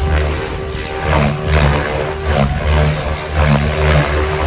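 SAB Goblin Black Thunder T 700-class electric RC helicopter flying hard 3D manoeuvres. The rotor blades whoosh in repeated surges about once a second over the steady whine of its Scorpion HK-4525 motor.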